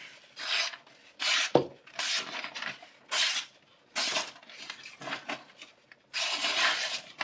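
Knife blade drawn in repeated scraping strokes across a sharpener's abrasive, about six strokes with a longer one near the end, and a sharp click about a second and a half in.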